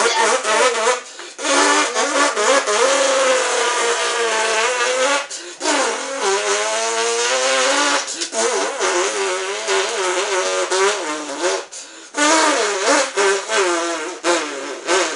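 A person imitating a stock car engine with the mouth: a buzzing vocal engine note that rises and falls in pitch like revving and gear changes. It comes in several runs broken by short pauses.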